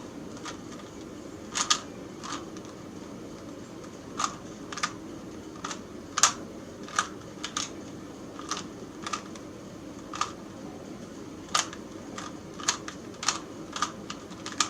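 Rubik's Cube layers being twisted by hand: irregular, short plastic clicks and clacks, sometimes two in quick succession, over a steady low hum.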